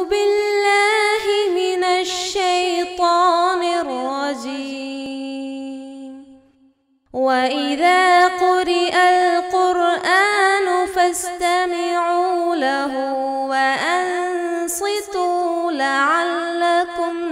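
A single unaccompanied voice reciting the Quran in the melodic tajweed style, drawing out long, ornamented notes. It breaks off for about a second midway, then resumes.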